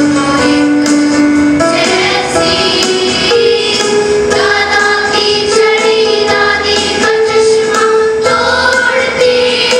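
Young female voices singing a slow melody in long held notes over instrumental backing.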